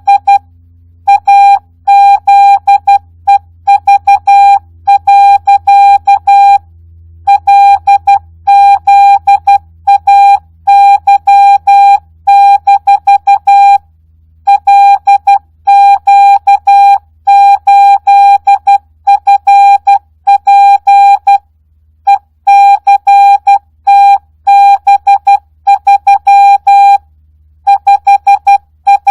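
Morse code (CW) practice tone sent at 12 words per minute without Farnsworth spacing: a single steady-pitched beep keyed on and off in dots and dashes, with longer gaps between words.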